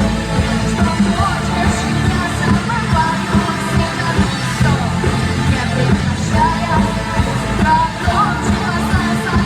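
Pop band music with a singer over a steady beat, from a vocal-instrumental ensemble.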